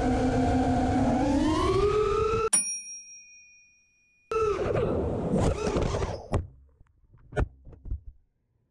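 5-inch FPV racing quadcopter's brushless motors whining as heard from its onboard camera, the pitch rising as the throttle is pushed up. The sound then cuts out for a couple of seconds, leaving only a faint steady high tone. The motors come back, fade, and a few sharp knocks follow as the quad crashes and settles in the grass.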